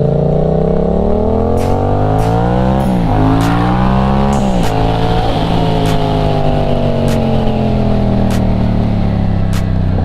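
Motorcycle engine accelerating with rising pitch, shifting up about three seconds in and again a second and a half later, then cruising with a slowly falling pitch. Sharp ticks are scattered throughout.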